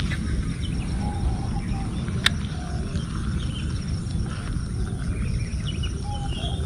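Outdoor ambience: a steady low rumble with scattered short animal chirps, and one sharp click a little past two seconds in.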